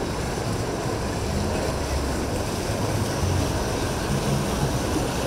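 Boat engines running steadily, a low rumble with water and wave noise mixed in.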